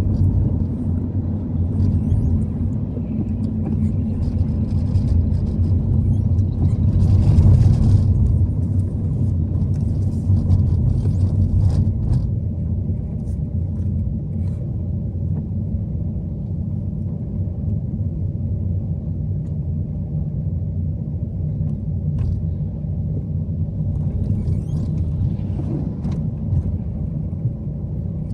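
Car on the move, a steady low rumble of engine and road noise, with a louder rushing swell about seven seconds in.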